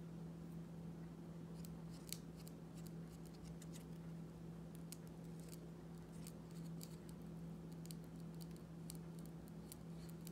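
Fine paintbrush dabbing and scratching on a small piece of paper card, a run of light, crisp, irregular ticks starting about a second and a half in, over a steady low hum.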